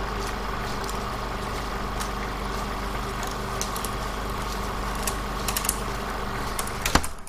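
A steady low mechanical hum over a constant hiss, with a few faint clicks about five seconds in and a sharp click near the end.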